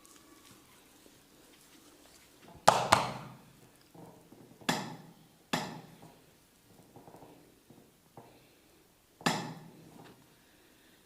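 Sharp percussive smacks from a massage: a quick pair about three seconds in, then single smacks at roughly two-second and four-second gaps, each dying away briefly.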